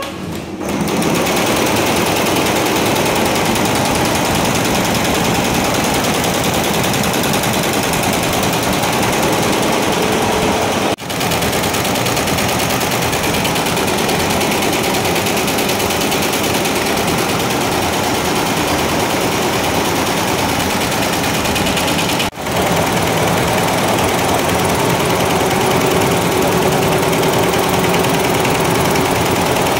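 Multi-head computerised embroidery machine stitching: a loud, fast, steady clatter of many needle heads running at once. It drops out for a moment twice, about a third and two thirds of the way through.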